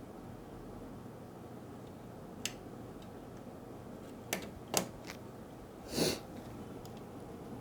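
A few faint, sharp clicks of plastic cable connectors being handled and seated in a printer, spaced a second or so apart, then one short, louder rasping noise near the end, over a low steady hum.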